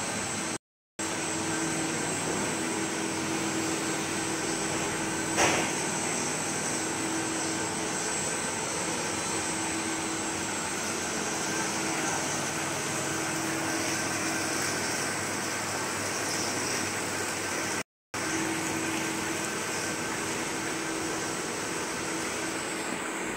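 Plastic pipe extrusion machine running: a steady mechanical hum with a constant low tone and a faint high whine, and a single click about five seconds in. The sound cuts out briefly twice.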